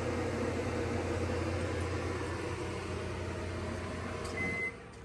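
900-watt microwave oven running off a 2200-watt Giandel power inverter with a steady hum, the inverter's cooling fans running along with it. Near the end one short high beep sounds and the hum drops away as the microwave finishes its cycle.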